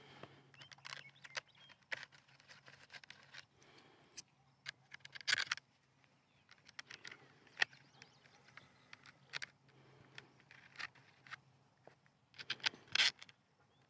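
Small metal clicks and light scrapes of an Allen key and tiny screws being handled at a rifle's chassis, scattered through, with a louder cluster of ticks about five seconds in and another near the end.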